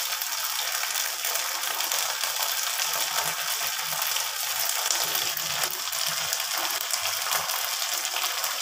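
Chopped ginger and garlic with red chili sauce sizzling in a little oil in a frying pan: a steady, fine crackling hiss.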